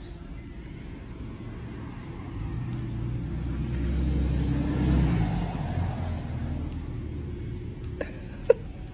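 A motor vehicle driving past: a low engine and road rumble that swells to a peak about five seconds in and then fades away. A few light clicks come near the end.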